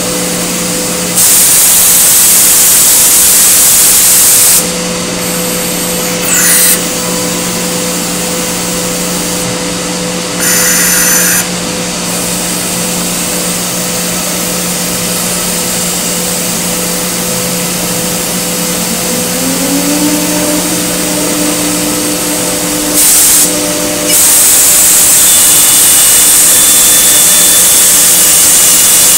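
Multicam MG205 CNC router running, its spindle giving a steady whine whose pitch steps up about twenty seconds in. Loud hissing stretches cut in: for about three seconds a second in, briefly twice, and again from about twenty-four seconds on.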